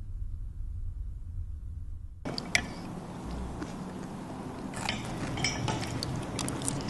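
A low hum, then from about two seconds in, scattered light clinks and scrapes of a utensil against a ceramic dinner bowl as someone eats.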